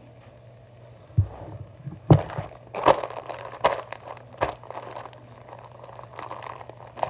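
Soft plastic packaging crinkling and crackling in irregular bursts as it is handled and turned close to the microphone. The loudest crackle comes about two seconds in.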